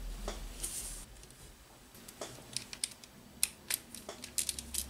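Light clicks and taps of small plastic RC-kit parts and a hand driver as a screw pin is turned in to join a rear upright to a lower suspension arm. The clicks start a little before halfway and come faster near the end.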